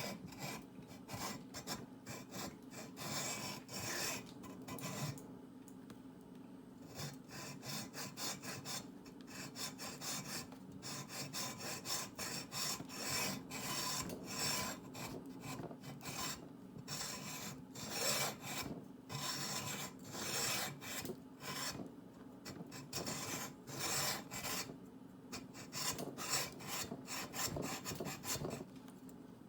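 Hacksaw with a thin-metal blade sawing through a soft selenite crystal in quick back-and-forth strokes, stopping briefly a few times.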